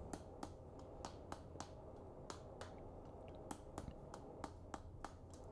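Faint hammer blows on red-hot steel on an anvil, short and sharp, about three a second with a brief pause about two seconds in.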